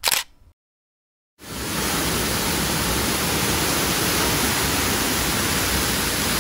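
A sharp click, then after a second of silence an artificial waterfall starts up steadily: water falling down rockwork and splashing into a pool, heard close.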